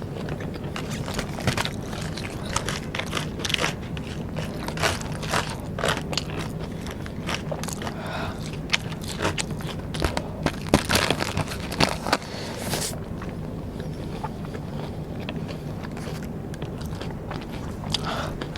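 Close-miked crunching and chewing of Vietnamese rice paper snacks (bánh tráng), with many sharp crunches. The crunches come thick for the first twelve seconds or so, then thin out.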